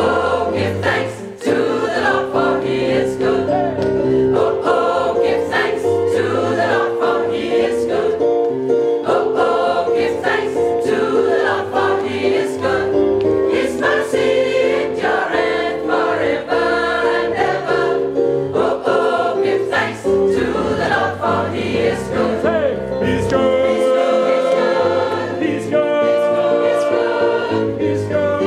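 Large gospel choir singing a gospel song in full chords, with handclaps on the beat.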